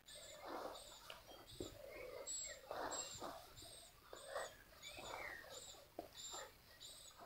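A child breathing hard in short puffs while doing sit-ups on the grass. A faint high chirp repeats about twice a second behind it.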